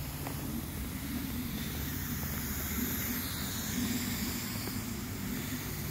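Pop-up lawn spray sprinklers running: a steady hiss of water spray over a low, even rumble.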